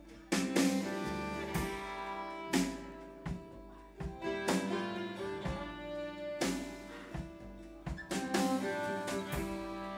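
Live folk band playing an instrumental passage: violin carrying sustained notes over acoustic guitar and a drum kit. Cymbal crashes land every second or two.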